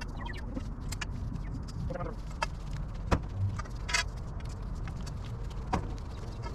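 Painted galvanized steel carport pipes clinking and knocking as they are handled and slid together into roof ribs: about six sharp metallic clanks, the loudest about three seconds in, one ringing on briefly about four seconds in.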